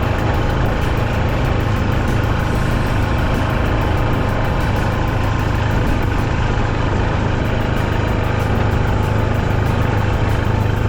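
Small vehicle engine running steadily with a low hum, no revving.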